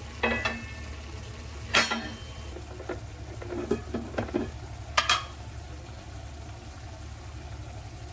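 Metal kitchen utensil clinking and scraping against cookware about a dozen times, some strikes ringing briefly, over a steady low hum; the clinks stop after about five seconds.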